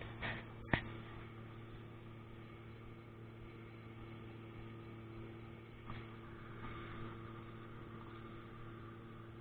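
Tractor engine running steadily in the background, a low even hum. Two sharp knocks within the first second, the second the loudest sound, and a lighter one about six seconds in, from the phone being handled against the arm.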